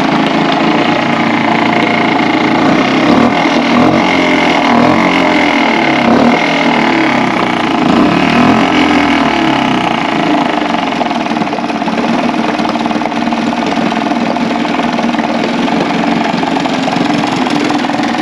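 Suzuki DF 2.5 single-cylinder four-stroke outboard motor running steadily, its leg in a bucket of water. Its carburettor has just been re-jetted with a larger #66 main jet and #34 pilot jet.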